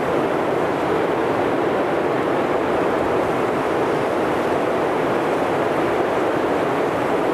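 Steady, even rushing noise with no gusts, rises or breaks, and no speech or music.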